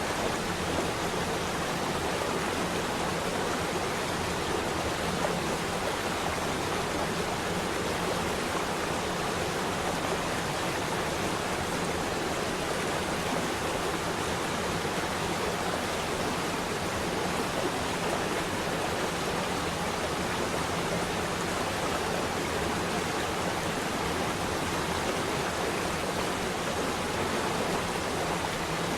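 Running water rushing steadily and evenly, without change.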